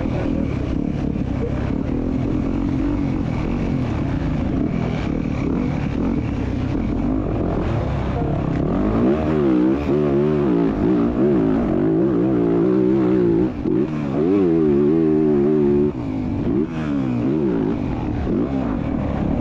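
Motocross bike engine heard close up from the bike, running hard on a muddy track. From about nine seconds in it is revved up and down in quick swings, the pitch rising and falling repeatedly, loudest near the end of that stretch.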